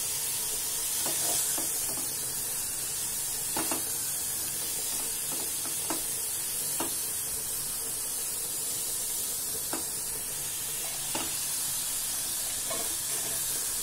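Diced snake gourd sizzling in oil in a stainless steel pot as a spatula stirs it, a steady hiss with a few short scrapes and knocks of the spatula against the pot.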